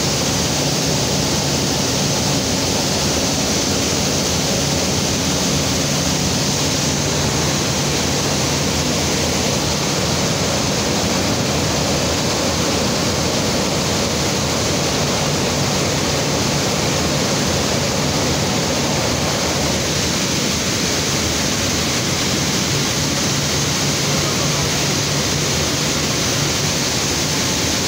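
Vibro separator running: a steady machine hum under a loud, even rush of grain pouring from its outlet chute into a bucket.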